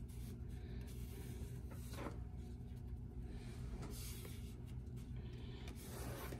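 Baseball cards being handled and slid aside on a playmat: a few soft rustles and scrapes, about two, three and a half, four and six seconds in, over a steady low hum.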